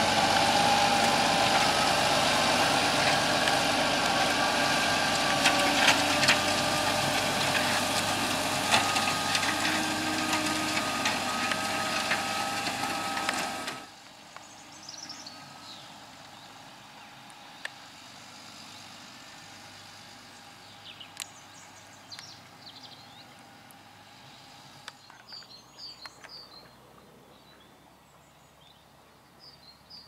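Fendt 936 Vario tractor's six-cylinder diesel running under load close by, pulling a six-furrow plough, with a steady engine note and a few sharp clicks. About fourteen seconds in it cuts abruptly to the tractor working far off, much quieter, with birds chirping.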